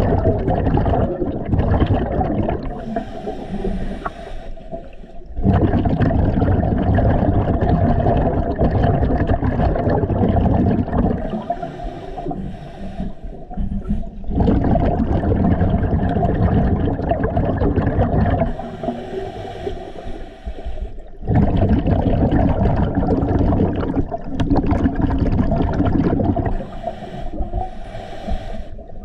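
Scuba diver breathing through a regulator underwater: long stretches of exhaled bubbles rushing and gurgling, alternating about every eight seconds with shorter, quieter hissing inhalations, about four breaths in all.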